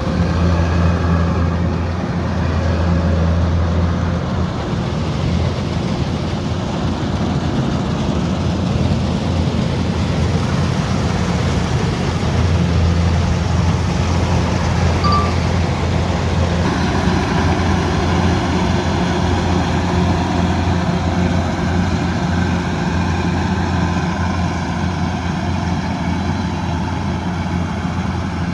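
Kubota DC108X combine harvester's diesel engine running steadily, with a constant low hum and a slight change in tone about seventeen seconds in.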